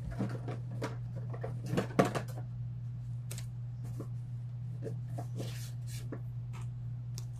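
Scattered clicks and knocks of a card deck being handled and set down on a table, with the loudest knock about two seconds in. A steady low hum runs underneath.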